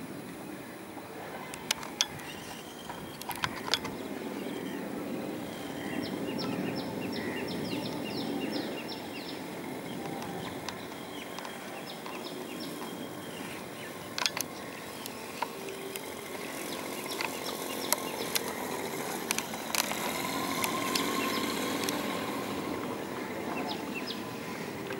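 Outdoor ambient noise: a steady low rumble that swells twice, with scattered sharp clicks and a quick run of high ticks about six seconds in.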